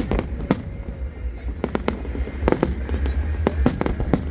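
Fireworks display going off: an irregular run of sharp bangs and crackling pops, several close together, over a steady low rumble.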